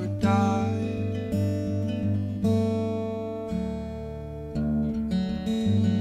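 Acoustic guitar strummed alone, a new chord struck about once a second and left ringing between strums.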